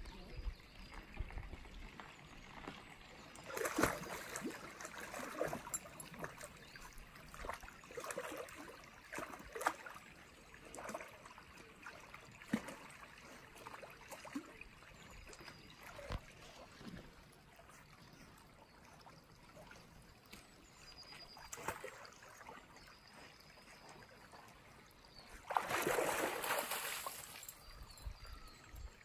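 Dog swimming and paddling in a shallow stream, with irregular splashes that are busiest in the first ten seconds or so and sparser after that. Near the end there is a louder rush of noise lasting a few seconds.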